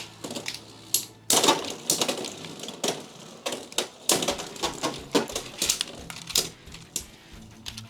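Two Beyblade X spinning tops clashing in a plastic stadium: sharp, irregular plastic clacks as they hit each other and the walls, with the loudest hits about a second and four seconds in.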